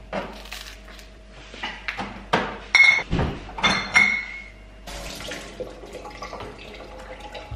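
Kitchen clatter: a run of sharp knocks and clinks over the first few seconds, two of them ringing briefly like a ceramic plate or glass being knocked. After about five seconds it gives way to softer, continuous handling noise.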